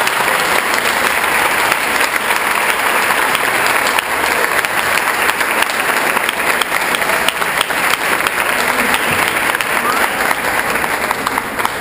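Audience applauding: a steady wash of many hands clapping, easing off near the end.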